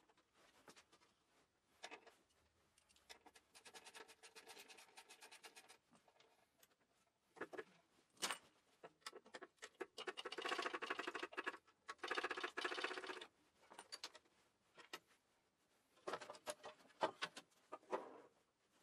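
Hand tools working the bolts of a Kohler K-series engine's sheet-metal flywheel housing: faint scrapes and clinks, with quick runs of ratchet clicking about ten and twelve seconds in and again near the end, as the housing is unbolted and taken off.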